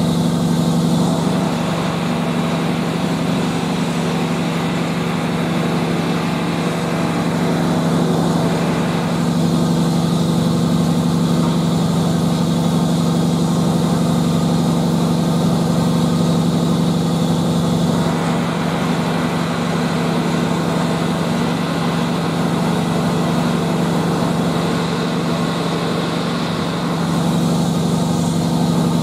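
Steam hissing from a standing steam locomotive, swelling and easing off several times, over a steady low engine-like drone.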